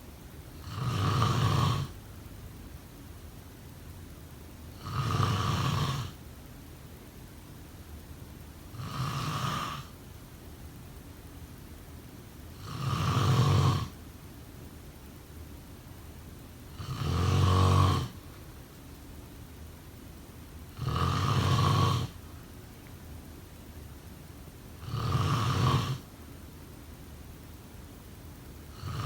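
A person snoring in a slow, even rhythm: about seven snores, each lasting about a second and coming roughly every four seconds. A faint steady hiss fills the gaps between them.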